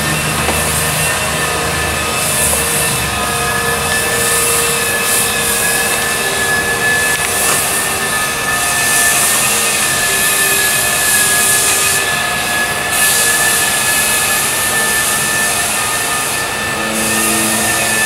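Floor sanding machine running: a loud, steady hiss with a constant high motor whine. The hiss dips briefly twice in the second half.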